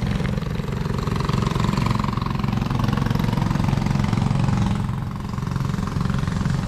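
A small boat engine running steadily at close range, with a fast, even pulse.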